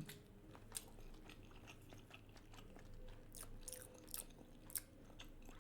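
Faint close-up chewing of raw salmon sushi: soft, wet mouth clicks scattered through the quiet, a few bunched together past the middle.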